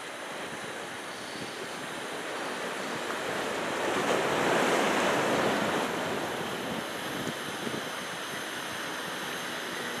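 Surf from a typhoon swell breaking, a steady rush of white water. It swells louder about four seconds in and eases back about two seconds later.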